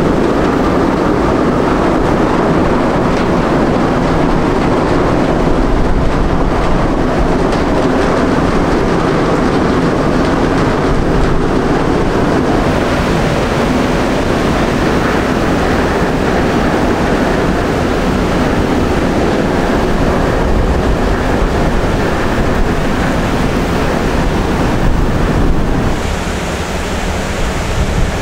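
A ship passing on the canal: a steady low rumble from its engine mixed with rushing water from its wake, and wind buffeting the microphone.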